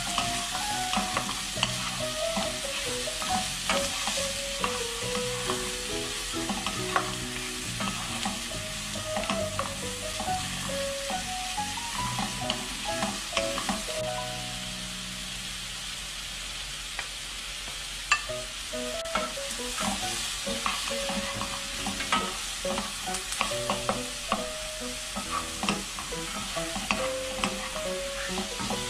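Sliced button mushrooms, onion and green onion sizzling in a nonstick wok while two wooden spatulas stir and toss them, with frequent light knocks and scrapes on the pan. The stirring stops for a few seconds around the middle, leaving only the sizzle, then starts again with a sharp knock.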